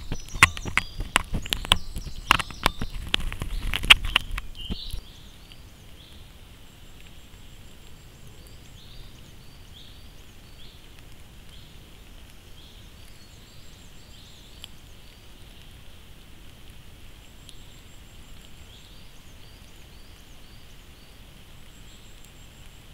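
Loud crackling and sharp clicks for the first few seconds, cutting off abruptly. Then quiet woodland with a steady hiss and small birds chirping short repeated notes.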